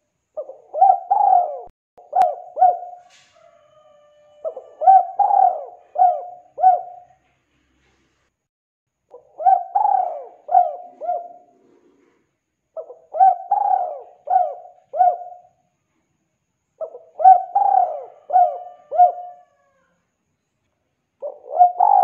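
Spotted dove (tekukur) cooing over and over: phrases of several short coos, one about every four seconds, with five full phrases and a sixth starting at the end.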